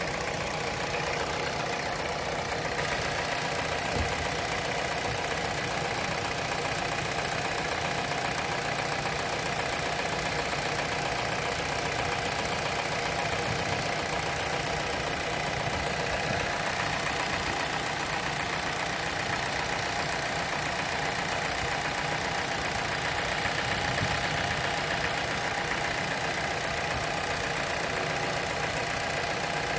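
2009 Dodge Caliber's four-cylinder engine idling steadily, heard close up over the open engine bay.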